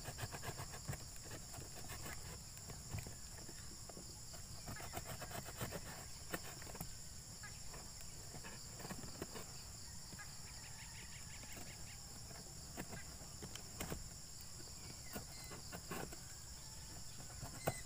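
Utility knife cutting through corrugated cardboard: faint scratchy scraping and small clicks as the blade works a handle hole into the box, over a steady high-pitched insect drone.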